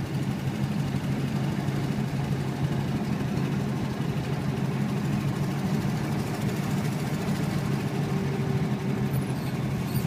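1959 Ford Thunderbird's V8 engine running steadily as the car drives along, heard from inside the cabin over road noise.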